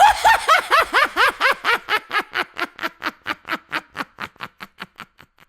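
A woman's evil, villain-style laugh: one long run of 'ha' pulses, about four a second, that fall in pitch and fade away until it stops near the end.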